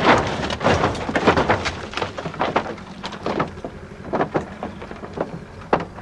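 Car body crashing over onto its side during a stunt roll: metal crunching and scraping on the ground at the start, thinning out into scattered knocks and clinks as the wreck settles over the next few seconds.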